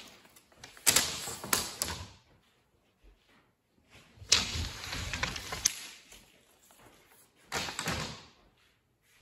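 Wooden strips being slid and knocked against the table and fence of a table saw whose blade is not running. There are three bouts of scraping, each with sharp knocks: about a second in, from about four to six seconds in, and a short one near the end.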